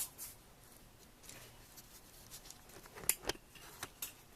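Faint camera handling noise: a few scattered clicks and taps, the loudest pair about three seconds in, as the camera is picked up and moved.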